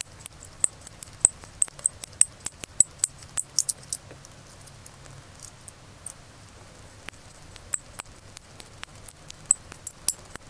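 A hand-turned pin vise with a 3 mm drill bit boring into the hard plastic of a vintage G.I. Joe figure's lower leg: light, quick scraping clicks at about three or four a second, which stop for a few seconds in the middle and then start again.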